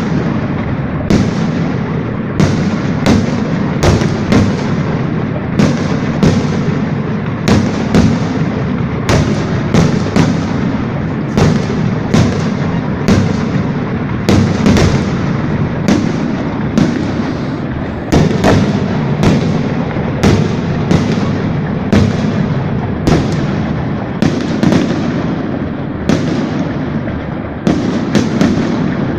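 Fireworks display: sharp bangs of bursting fireworks, one to two a second, over a continuous rumbling crackle.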